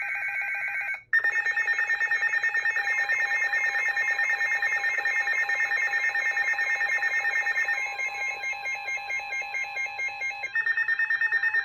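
Emergency Alert System alert tone between two broadcast warnings: a short steady electronic tone, then, about a second in, a harsh, rapidly pulsing alarm tone held for about ten seconds.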